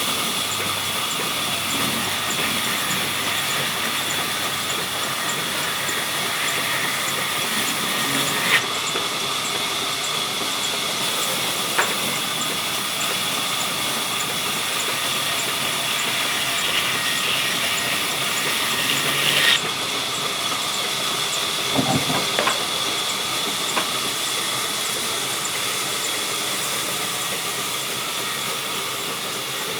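Sawmill saw running at a steady level: a continuous hiss with a steady high whine through it. A few sharp knocks are scattered through it, the loudest near the middle and about two-thirds of the way through.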